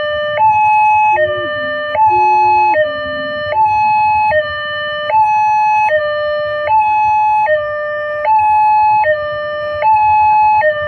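Railway level-crossing warning alarm sounding a two-tone electronic signal, low and high notes alternating evenly about every 0.7 s. It is the warning that a train is approaching the crossing.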